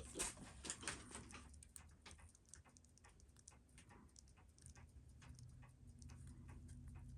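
Faint, scattered light clicks and taps of small watchmaking hand tools on a watch case as a pusher gasket is worked free, with a low steady hum coming in about halfway.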